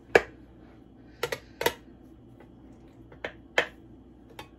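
Dough scraper chopping down onto a wooden cutting board while trimming excess pie-crust dough: about seven sharp, irregular taps.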